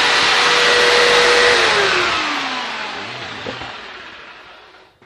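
A jigsaw mounted blade-up under a work table, used as a makeshift bandsaw, running at full speed with a steady whine. About a second and a half in its motor note starts falling in pitch and the noise fades away as the saw winds down.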